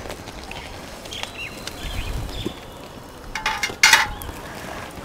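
Gram flour batter being mixed in a bowl, with a short loud clatter of a utensil a little under four seconds in. Faint bird chirps sound in the background.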